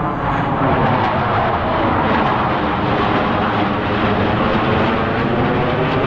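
Blue Angels jet aircraft flying over, a steady jet roar.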